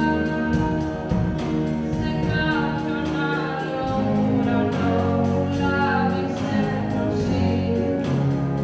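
A live rock band plays electric and acoustic guitars, bass and keyboard, with a melody line moving over steady chords.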